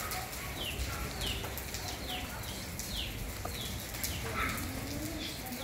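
An animal's short, high chirps, each falling in pitch, repeated about seven times at a steady pace of roughly one every three-quarters of a second.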